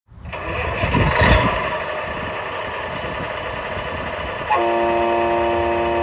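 Tamiya MFC-01 sound unit on a 1/14 RC semi truck playing its simulated diesel engine start-up, which then settles into a steady idle. About four and a half seconds in, a steady truck horn tone starts and holds to the end.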